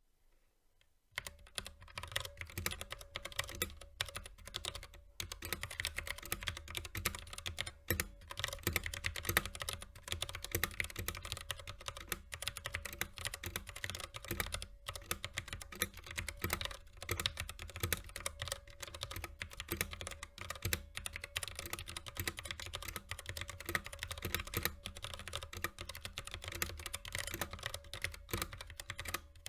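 Continuous typing on a mechanical keyboard with TTC Gold V2 Brown tactile switches and PBT keycaps: a steady stream of rapid key clacks, starting about a second in.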